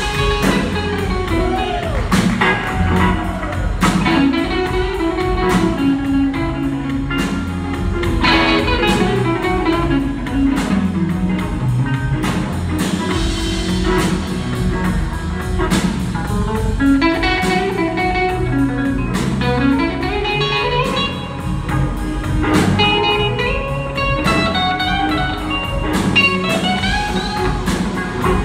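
Live blues band playing an instrumental passage: an electric guitar takes the lead with bending, gliding notes over drums and upright bass.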